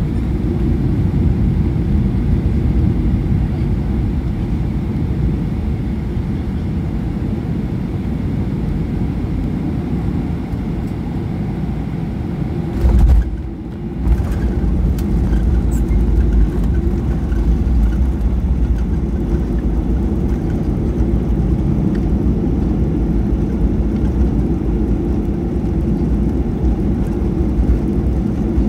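Steady low cabin rumble inside a Boeing 737-800 rolling along the ground after landing: the engines and the wheels on the pavement. About halfway through there is a brief louder jolt, then a short dip, and the rumble comes back with a heavier low end.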